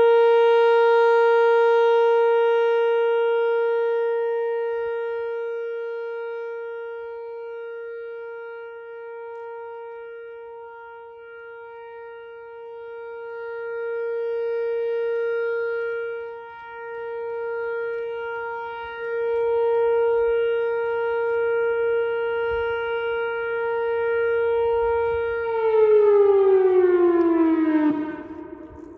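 Whelen WPS-4004 electronic outdoor warning siren sounding its steady alert tone, one unbroken pitch that swells and fades in loudness. About 25 seconds in, the tone glides down and dies away as the one-minute alert signal ends.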